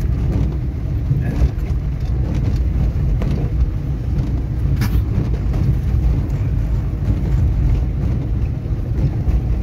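Car cabin noise while driving on a wet road: a steady low rumble of engine and tyres, with a single short click about five seconds in.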